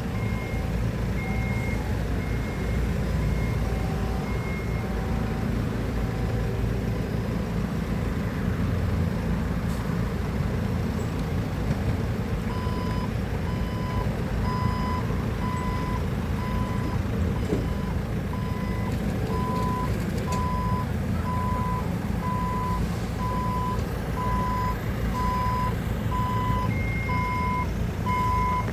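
Heavy machine's diesel engine running with a backup alarm beeping at a steady pace. High-pitched beeps sound early on, and a lower-pitched beep starts about halfway, about one and a half a second, growing louder toward the end.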